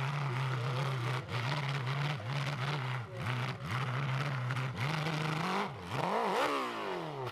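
Hill-climb motocross bike engine revving hard and held near the top of its range, dipping briefly every second or so as the throttle is worked for grip on the steep slope. About six seconds in the revs shoot up and then fall away as the bike loops over backwards.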